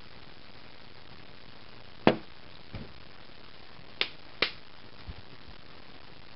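Three sharp knocks or taps, the first the loudest and the last two close together, with two fainter dull thumps between them, over a steady hiss.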